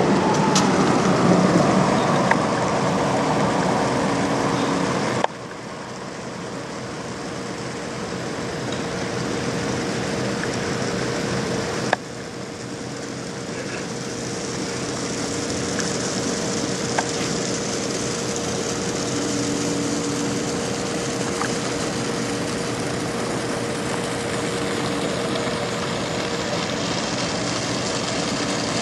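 Steady machinery hum with a constant droning tone, typical of a docked lake freighter's running auxiliary machinery. The level drops abruptly twice, about 5 and 12 seconds in.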